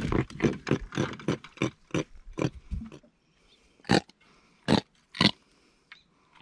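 Javelin grunter, a fish out of the water, grunting: a quick run of short grunts about four a second, then a few single grunts spaced about a second apart.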